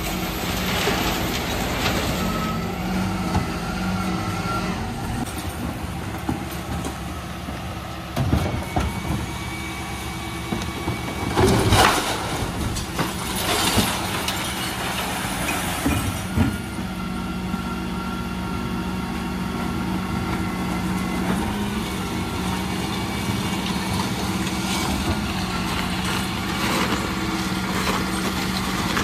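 Dennis Elite 6 refuse truck running steadily at the kerb while its Terberg bin lifter raises and tips a blue wheelie bin of plastics, cans and glass into the hopper. A cluster of loud bangs and clatter comes in the middle as the bin is shaken out, with the engine hum stronger afterwards.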